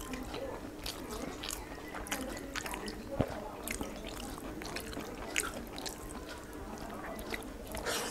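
Close-up eating sounds of rice and curry eaten by hand: wet chewing and irregular smacking clicks as the fingers mix rice on the plate and the mouth chews, over a low steady room hum.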